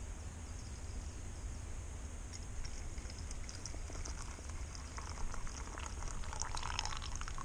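Coffee poured from a moka pot in a steady stream into a metal mug, the trickle and splash growing louder about five seconds in, with small crackles from the wood-burning stove beside it.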